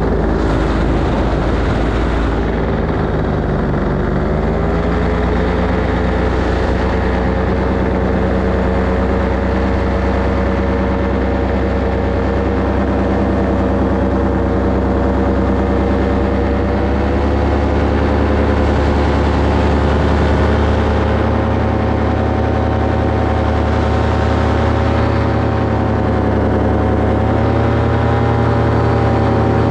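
Paramotor engine and propeller running steadily in flight. The engine note dips briefly a few seconds in, then climbs back and holds.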